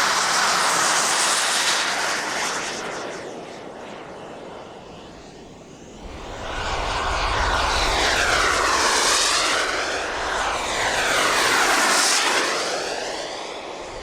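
Twin JetsMunt Merlin turbines of a large model jet flying past, a steady jet rush with a faint high whine. It fades about a third of the way in, then swells again through two loud close passes near the middle and near the end, each with a sweeping, phasing whoosh.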